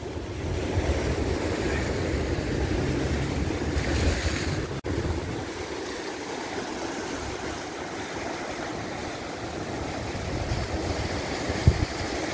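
Ocean surf washing and breaking over rocks along the shore, with wind rumbling on the microphone.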